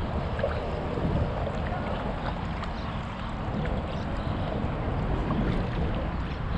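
Water lapping and splashing around a paddleboard, with wind rumbling on a chest-mounted GoPro HERO7's microphone.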